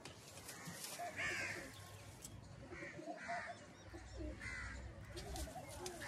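Crows cawing faintly, about half a dozen short harsh caws spaced roughly a second apart.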